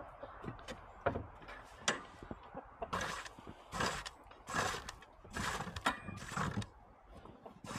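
A rake scraping through old straw and pine-shavings deep-litter bedding on a chicken coop floor: a few faint clicks, then from about three seconds in a run of about six short rustling scrapes, roughly one every half to one second.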